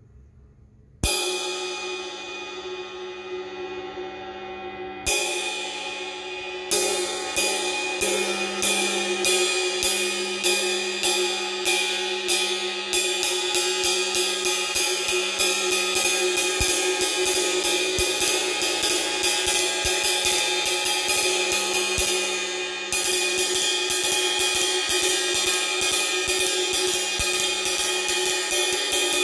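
Vintage 1986 Paiste Sound Creation 20-inch Bright Medium cymbal struck once with a wooden drumstick and left to ring, struck again about four seconds later, then played in a steady ride pattern. The strokes come about two a second at first and roughly twice as fast from about halfway, with one louder stroke near the end, all over a long ringing wash.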